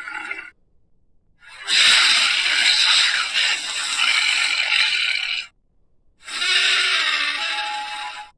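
Dinosaur roar sound effects: the Giganotosaurus calls, used here as a Carnotaurus's voice. Three harsh, high-pitched roars with short silences between. The first ends about half a second in, a long roar of about four seconds follows, and a roughly two-second roar comes near the end.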